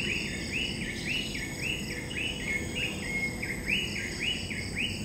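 A bird calling a long series of repeated arching whistled notes, about two a second, over a steady high drone of insects.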